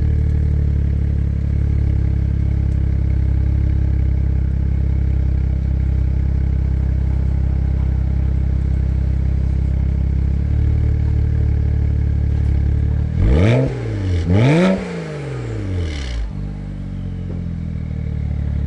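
BMW 135i's N54 twin-turbo inline-six, breathing through N55 midpipes, idling steadily at the exhaust tips. Twice, about 13 and 14.5 seconds in, it is revved quickly, its pitch rising and falling. It then settles back to idle.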